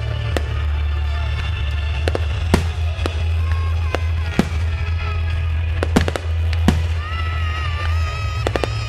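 Fireworks bursting with a sharp bang every second or so, over music with a steady deep bass.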